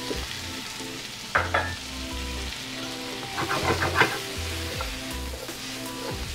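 Diced mushrooms, tomatoes and vegetables sizzling in butter in a hot sauté pan. A metal fork clinks and scrapes against the pan as they are stirred, once about a second and a half in and in a busier run around three to four seconds in.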